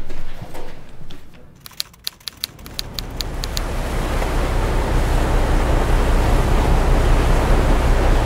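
A quick run of about nine sharp clicks, then the steady low rumble of a landing craft's engine with sea and wind noise, swelling in and holding.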